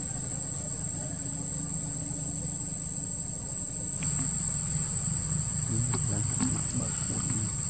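Steady high-pitched drone of an insect chorus, unbroken throughout. A few short clicks and squeaks join in over the last two seconds.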